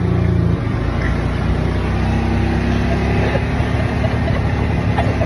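Golf cart running as it drives along: a steady low motor hum over road noise, its pitch shifting about half a second in.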